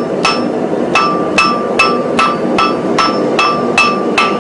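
Blacksmith's hand hammer striking a red-hot 4140 steel hammer head on the anvil, squaring its corners. About ten blows come at an even pace of about two and a half a second, each with a short metallic ring.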